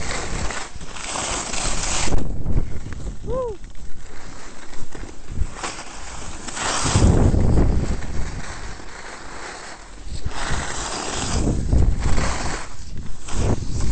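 Wind rushing over a helmet-camera microphone and a snowboard scraping across packed snow while riding downhill, the noise surging and easing several times.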